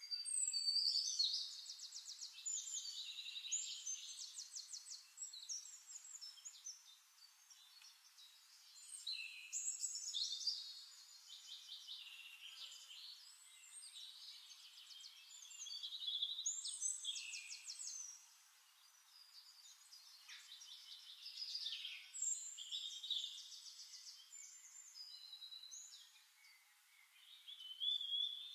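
Songbirds singing: rapid high trills and chirps in phrases a few seconds long, separated by short lulls.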